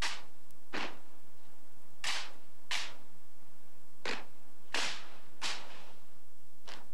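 Sharp slaps and snaps from a Marine silent drill team's rifle drill, about eight in all at uneven intervals, several in pairs about two-thirds of a second apart.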